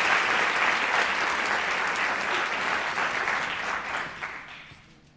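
Audience applauding, thinning and dying away over the last second or so.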